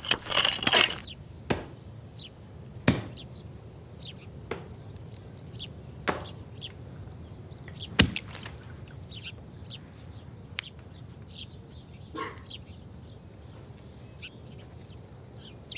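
Pickaxes striking stony ground in quick succession for about the first second, then a few single knocks several seconds apart, with small birds chirping faintly throughout.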